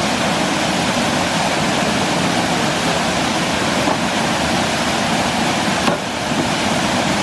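Water rushing over a small woodland waterfall: a loud, steady rush, with a slight change in the noise about six seconds in.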